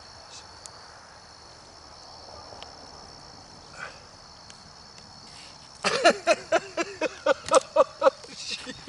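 Insects chirring steadily in a high, even drone. About six seconds in, a quick run of about ten loud, short pitched calls, roughly four a second, close by.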